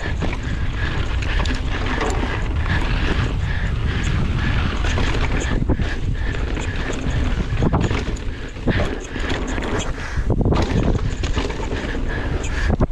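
Wind buffeting the camera microphone as a mountain bike descends a rough trail, with frequent sharp knocks and rattles from the bike over bumps.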